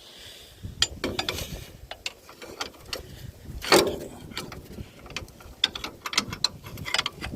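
Irregular metallic clicks and clunks of hand tools, a ratchet among them, working on an old inline-six engine. One louder clunk comes about four seconds in.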